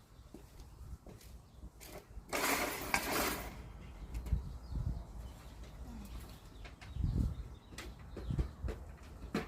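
PVC pipes and pipe tape being handled: scattered light clicks and knocks, with a rasping noise lasting about a second a couple of seconds in.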